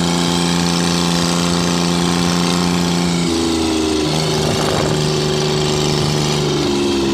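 Engine of a moving vehicle running steadily under a constant hiss of road and wind noise; its pitch steps a few seconds in and again near the end.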